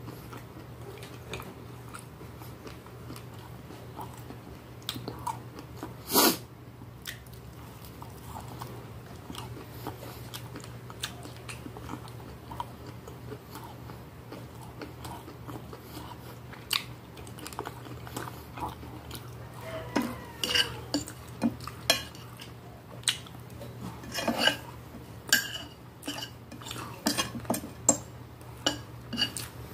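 Close-up eating: chewing and mouth sounds, then a metal fork clinking and scraping on a glass plate in quick sharp clicks through the last third. One louder sharp click about six seconds in.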